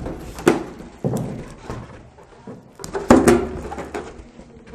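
Inflated latex balloons being handled and twisted together by their necks: rubber squeaks and a few soft knocks, the loudest about three seconds in.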